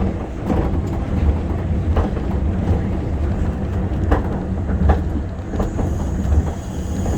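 Tokyo Monorail 1000-series train running along its rubber-tyred guideway, heard from inside: a steady low rumble with a few short knocks. A faint high whine comes in near the end.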